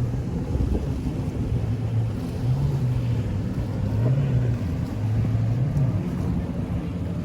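Jet ski engine running under way, its pitch rising and falling several times with the throttle, with wind noise on the microphone.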